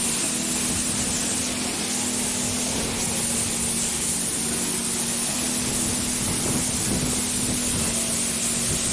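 Waterfall's falling water and spray, a steady rushing hiss.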